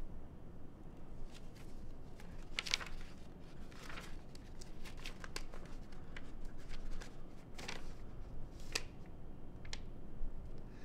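Sheets of paper rustling and crinkling as they are handled and leafed through, in short scattered crackles.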